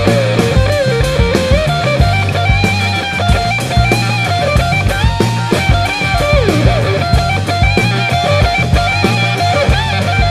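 Background rock music: a guitar melody with bends over bass and a steady drum beat.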